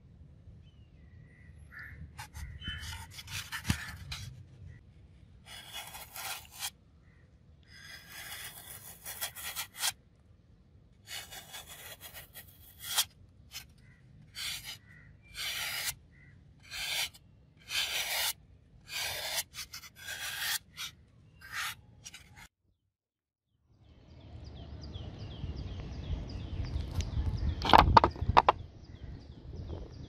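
A serrated steel knife blade cutting and sawing through a block of floral foam: a long run of separate scraping strokes, some short and some about a second long, one after another. After a brief gap near the end comes a steadier noise with one sharp, louder sound in it.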